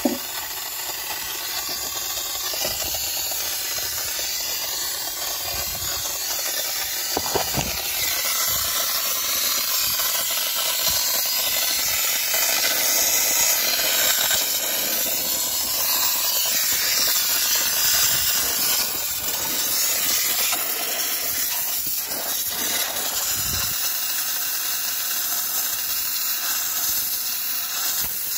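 Handheld steam cleaner jetting steam from its nozzle onto engine parts with a steady hiss, degreasing the engine bay.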